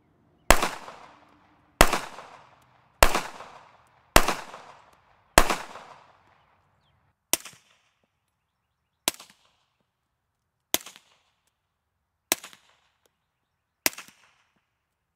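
A .45 ACP pistol firing 230-grain rounds: five unsuppressed shots about 1.2 seconds apart, each with a long ringing tail. Then five shots through a Bowers ASP45 suppressor shot wet, about 1.6 seconds apart, quieter and much shorter, with little tail.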